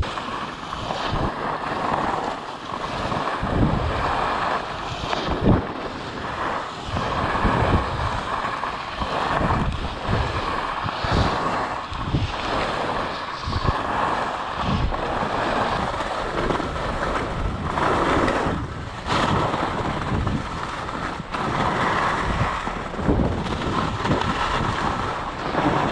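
Wind buffeting the microphone of a camera moving downhill on skis, over the hiss of skis carving on snow, rising and falling in swells with the turns.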